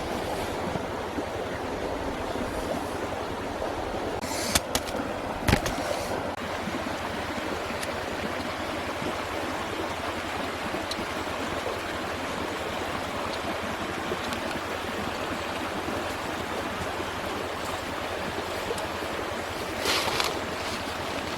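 Steady rushing noise, with two sharp knocks about four and a half and five and a half seconds in and a brief louder rustle near the end.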